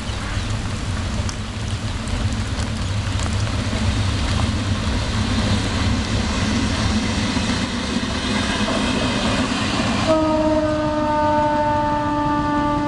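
Passenger express train approaching and passing, with a steady, building rumble of its coaches on the track. About ten seconds in a long train horn blast starts, its pitch sagging slightly as it goes on.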